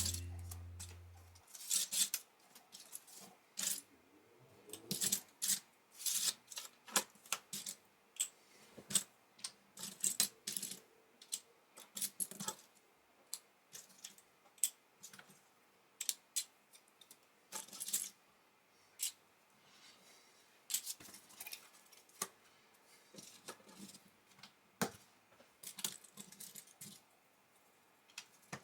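Small plastic Lego pieces clicking and clattering as they are handled and fitted together, with irregular sharp clicks a few times a second.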